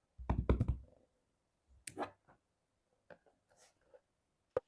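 Hands handling a smartphone's box and packaging: a low thump in the first second, a scuff about two seconds in, a few small clicks, and one sharp click near the end.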